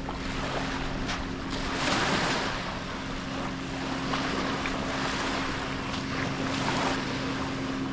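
Small waves washing onto a sandy beach, swelling and easing every second or two, with some wind on the microphone. A faint steady low hum runs underneath.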